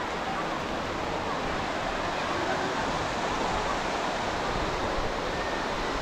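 Ocean surf washing on a beach in a steady, even rush.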